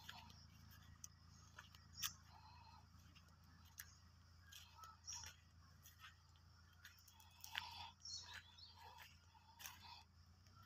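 Near silence: faint open-field ambience with scattered soft clicks and a few faint distant bird chirps.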